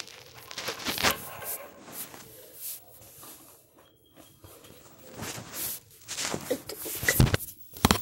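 Rustling and knocking of a phone being handled and moved about, with short scattered clicks and several louder thumps near the end.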